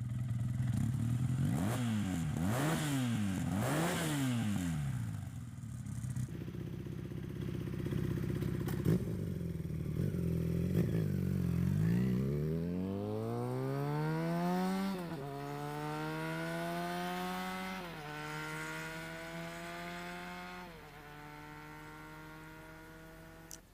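Honda CBR 450 SR motorcycle on its stock exhaust, blipped three times in quick succession, then pulling away and accelerating through the gears: the engine note climbs and drops back at each of three upshifts while it fades into the distance.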